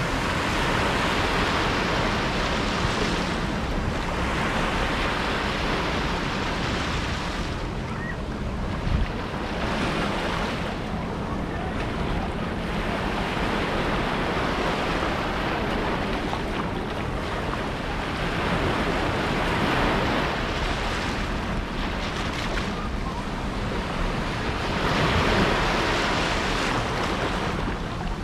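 Small waves washing up a sandy shore and drawing back, swelling and fading every few seconds, with wind rumbling on the microphone. One brief low thump about nine seconds in.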